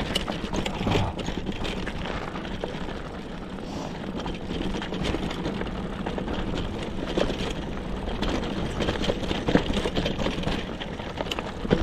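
Mountain bike on Schwalbe Tough Tom tyres riding over a rocky gravel trail: a steady low rumble of wind and rolling tyres, with scattered sharp knocks and rattles as the bike hits rocks.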